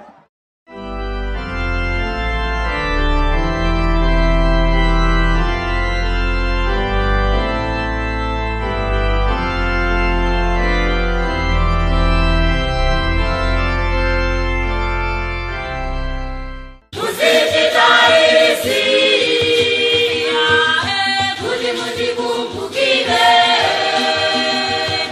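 Organ music: slow held chords over a deep bass line. About 17 seconds in it cuts abruptly to a choir singing with percussion.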